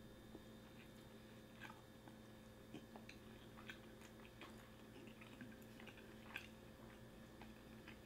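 Faint chewing of a mouthful of sushi, with scattered soft mouth clicks over a low steady hum.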